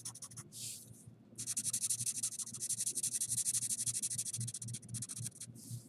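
Yellow felt-tip marker shading a triangle on paper: one short stroke, then from about a second and a half in a run of rapid back-and-forth scribbling strokes that stops near the end.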